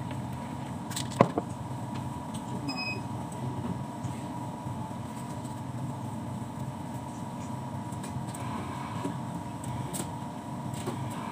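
Steady low machine hum with a faint steady whine above it, and one sharp knock about a second in.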